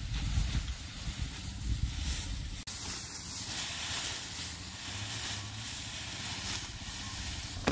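Wind rumbling on the microphone, then, after an abrupt change about two and a half seconds in, a steady outdoor hiss with soft swells.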